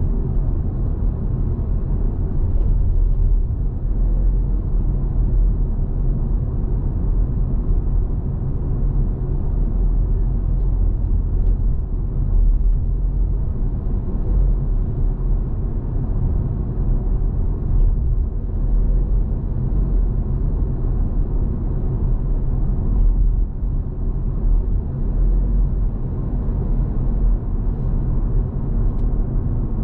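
Car on the move: a steady low rumble of engine and road noise, with a few faint ticks scattered through it.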